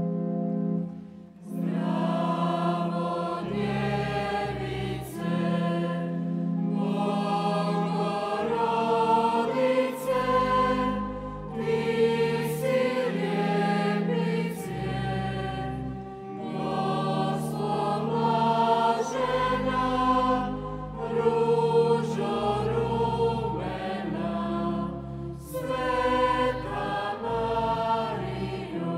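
Young church choir singing a closing hymn in several voices over sustained organ-toned keyboard accompaniment, with short breaths between phrases.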